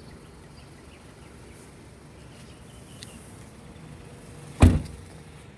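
Steady low background noise with one loud, short thump about four and a half seconds in.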